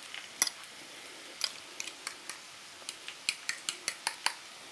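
A fork clicking against a bowl while beating eggs and sliced tomatoes together: about a dozen sharp, irregular clicks, coming faster near the end.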